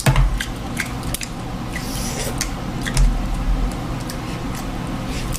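Close-up mukbang eating sounds: wet smacking and squishing with many short sharp clicks as seafood-boil food is eaten by hand, and a low thump at the start and again about three seconds in.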